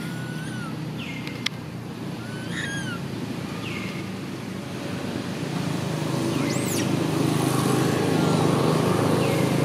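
About half a dozen short chirping calls, spaced a second or more apart, over a steady low rumble that grows louder about halfway through. There is one sharp click about one and a half seconds in.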